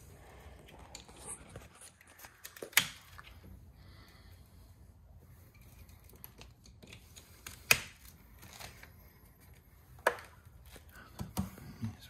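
Heavy power cables with plastic Anderson connectors being handled against a plastic tool-case battery box: rustling and small knocks, with three sharp clacks spread a few seconds apart.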